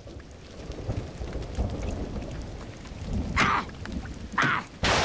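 Cartoon storm sound effect: rain falling with rumbling thunder, and a few sharp, louder hits in the second half, the loudest just before the end.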